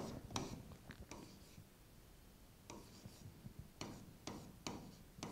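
Pen stylus writing on an interactive smart-board touchscreen: faint taps and short scratches of the pen tip as letters are written, with a pause of about a second in the middle.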